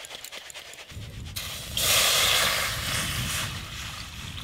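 Rice flour rattling softly through a plastic sieve, then water poured from a mug into a wok on a wood-fired clay stove: a loud splashing hiss for about a second and a half in the middle, then fading, over a low rumble.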